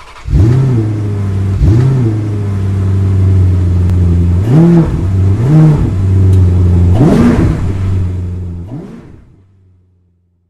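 Car engine running steadily and revved in five short throttle blips, each rising and falling back, then fading out near the end.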